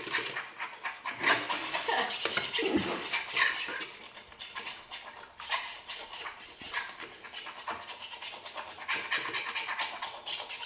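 Raw eggs being beaten fast in a non-stick frying pan: quick, scratchy strokes of the utensil through the liquid egg and against the pan.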